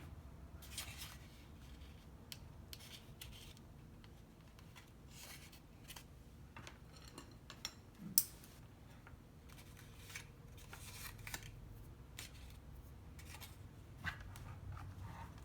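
Cardstock paper petals rustling and rubbing as they are handled and pressed onto a glued rosebud, in scattered short crinkles with a sharp tap about eight seconds in.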